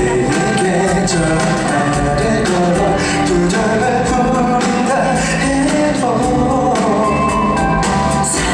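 Male vocalist singing a pop song live into a handheld microphone, over a band with drums, through a concert sound system.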